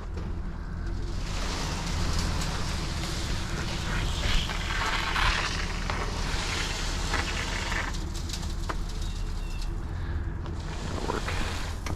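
An engine runs steadily under a loud rushing, crackling noise that swells about a second in and dies away near the end.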